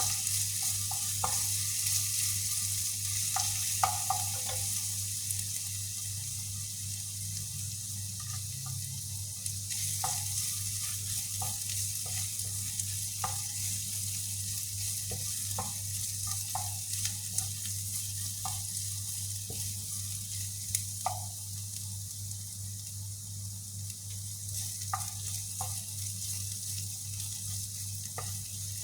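Chicken meatballs frying in oil: a steady sizzle, with short ticks and pops scattered through it.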